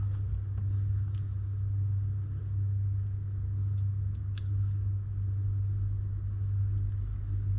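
Steady low background hum, with a few faint light clicks of small reel parts being handled during reassembly.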